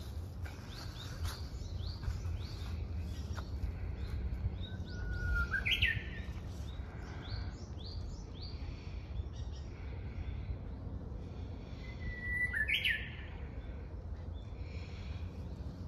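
Japanese bush warbler (uguisu) singing twice: each song a long held whistle that breaks into a quick rising flourish, about five seconds in and again about twelve seconds in. Other small birds chirp steadily throughout, over a low rumble.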